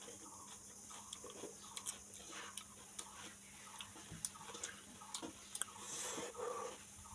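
A person chewing a mouthful of raw cucumber: faint, scattered crunching clicks over a steady high-pitched hiss.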